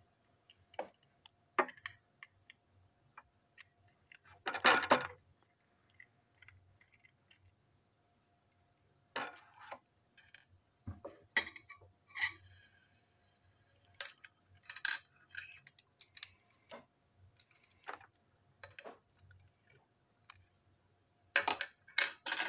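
Small plastic and metal toy-train parts being handled and pulled apart on a tabletop: scattered clicks, taps and knocks, the loudest about five seconds in and a quick cluster near the end.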